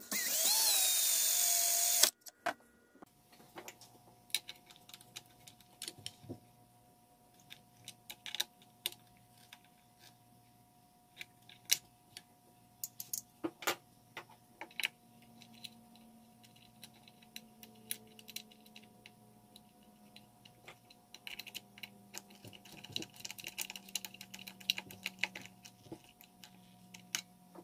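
Cordless drill running at speed for about two seconds at the start, boring a hole in a circular saw's metal blade guard, and stopping abruptly. Then come scattered clicks and clinks of small metal parts being handled. In the last few seconds the clicks grow denser under a low, slow drill hum as self-tapping screws are driven through a sheet-metal strap.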